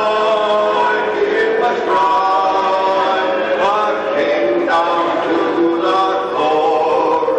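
Barbershop quartet of men singing a cappella in close harmony, holding sustained chords that shift every second or two.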